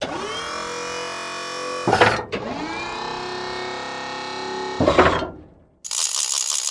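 Electronic sound effects: two held tones with many overtones, each dipping in pitch at the start and ending in a louder burst, then a fast-pulsing electronic alarm tone begins near the end.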